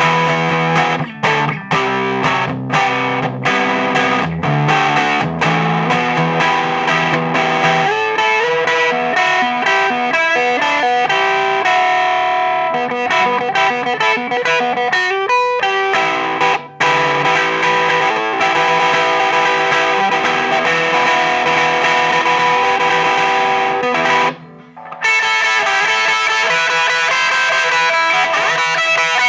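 Electric guitar played through a DIYGP Vulcan Drive pedal built as an MXR Distortion+ clone with germanium clipping diodes: distorted riffs and picked notes, with a brief break about 24 seconds in before the playing resumes.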